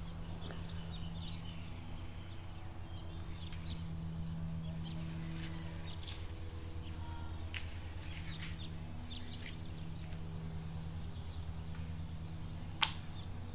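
Steady low outdoor hum with a few faint rustles and high ticks, then one sharp snip near the end as garden scissors cut through a bell pepper's stem.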